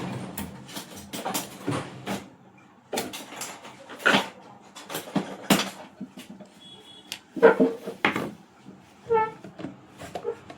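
Irregular clicks and knocks of hard parts and tools being handled during reassembly of a home theatre unit. Short pitched cries come about seven and a half seconds in and again about nine seconds in.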